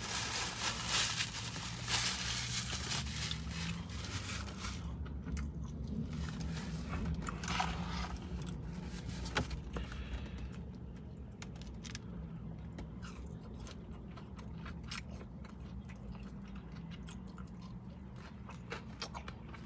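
Paper crinkling as it is handled for the first few seconds, then close-up chewing and crunching of fried chicken nuggets, with scattered short clicks of biting and mouth sounds.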